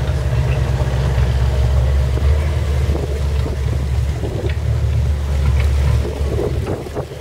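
Steady low rumble on board a boat coming in to a dock: engine drone with wind buffeting the microphone, easing off about six seconds in.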